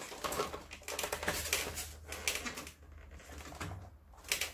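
Plastic aircon parts being handled as the drain pan comes free of a Daikin wall-mounted indoor unit: a run of light clicks and knocks, then a quieter stretch and one sharper click near the end.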